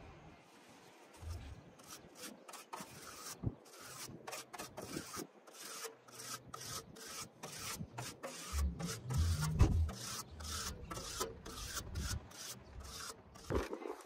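Air conditioner coil fins scraped by a hand tool in quick, repeated rasping strokes, two to three a second, during coil cleaning on a Coleman Mach RV rooftop unit. A dull low bump comes about two-thirds of the way through.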